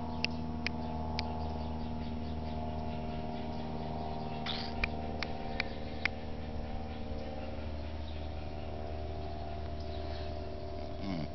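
A steady mechanical hum made of several held tones, with a few light clicks scattered through it.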